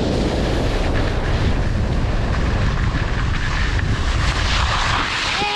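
Wind buffeting the microphone: a loud, steady, rumbling noise. A short rising-and-falling tone comes in near the end.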